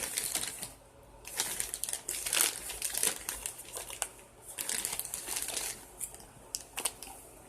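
Crinkly packaging being handled and pulled at as a sealed package is opened, in irregular bursts of crackling with a short pause about a second in.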